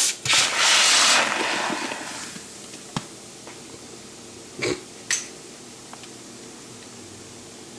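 A bottle cap pried off a gushing homebrew milk stout with a sharp pop, followed at once by a loud hiss of gas and foam rushing out of the bottle, which fades within a second or two. The brewer puts the gushing down to a wild-yeast infection. A few sharp knocks follow.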